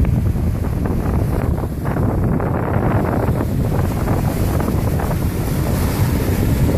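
Wind buffeting the camera's microphone, a loud, steady low rumble, with sea waves washing behind it.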